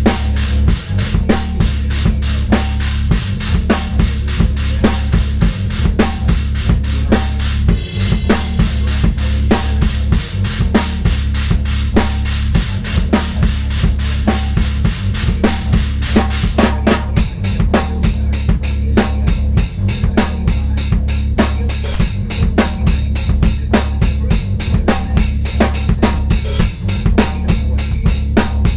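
Drum kit played in a fast improvised groove, bass drum, snare and rimshots, over a backing audio sample with a steady low bass. The pattern shifts a little past halfway.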